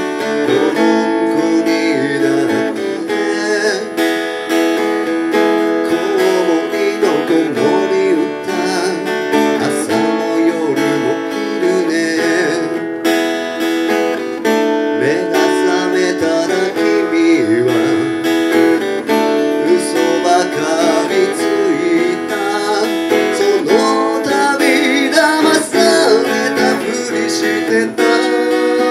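Acoustic guitar strumming a song, played through stage speakers.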